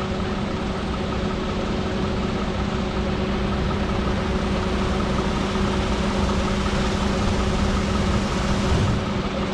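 Heavy diesel harvest machinery running steadily: a constant engine and drive hum with a few steady whining tones over a broad mechanical rush, swelling slightly near the end.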